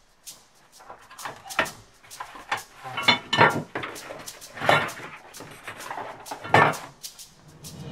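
Objects being handled and set down on a workbench: a scatter of clattering knocks and clinks, the loudest about three and a half, four and a half and six and a half seconds in.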